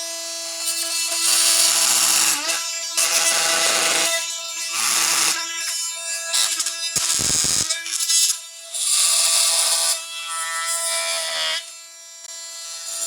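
Oscillating multi-tool with a bi-metal blade running with a steady whine and cutting in repeated loud passes through nail-embedded wood, sawing through the nails that join two boards.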